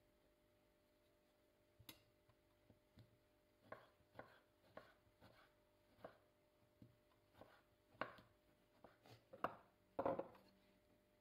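Kitchen knife slicing tomatoes on a wooden cutting board: a quiet string of separate chops, about one or two a second, starting about two seconds in. Near the end comes a louder knock as a ceramic bowl is set down on the counter.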